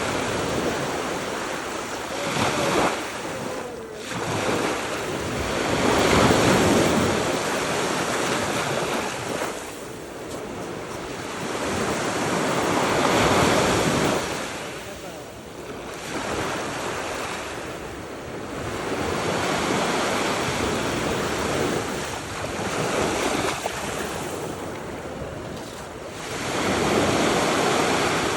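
Gulf of Mexico surf breaking and washing up on a sandy beach, each wave swelling and fading about every six or seven seconds, with wind buffeting the microphone.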